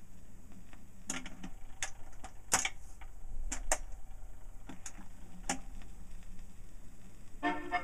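Tone arm of a portable record player lowered onto a 78 rpm shellac record, the stylus running in the lead-in groove: scattered sharp clicks and crackle over a low steady hum. Accordion music begins right at the end.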